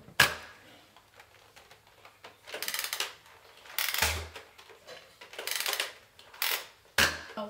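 Nerf Scravenger lever-action blaster being slam-fired: the priming lever is worked repeatedly while the slam-fire switch is engaged, giving several separate plastic clacks and short bursts of noise, irregularly spaced about a second apart.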